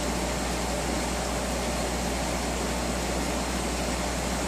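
Steady mechanical hum with an even hiss over it, unchanging throughout.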